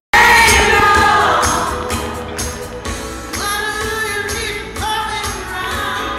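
Live pop music over a concert sound system, recorded from the crowd: female vocals singing over a steady beat.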